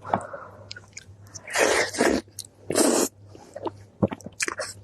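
Close-miked eating: wet chewing with many small clicks and smacks, broken by two loud breathy rushes about one and a half and two and a half seconds in.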